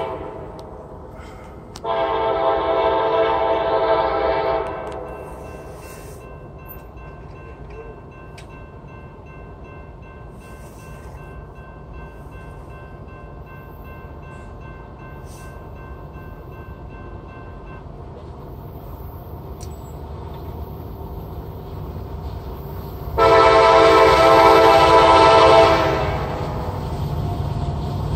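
Norfolk Southern freight locomotive's air horn sounding its chord for a grade crossing. There is a blast at the very start, then a long blast of about three seconds a couple of seconds in, then a long pause and another long blast near the end. The low rumble of the approaching train grows toward the end.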